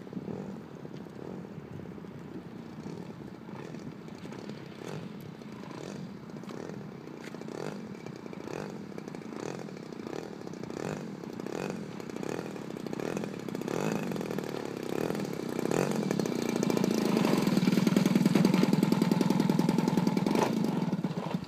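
Engine of a large RC aerobatic airplane coming in to land: fainter and uneven while it is out over the road, then growing louder as it touches down and taxis up close, and running steadily at low throttle over the last few seconds.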